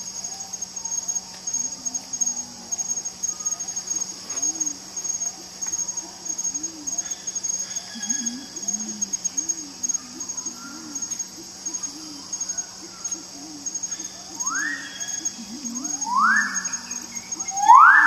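Male magnificent riflebird giving loud rising whistled calls, three of them in the last few seconds, each sweeping upward and growing louder, over soft repeated low chirps and a steady high insect drone from the rainforest.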